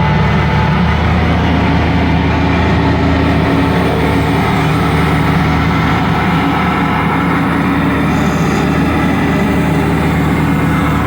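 A Bobcat machine's engine running steadily at working speed, driving the hydraulic SG60 stump grinder attachment.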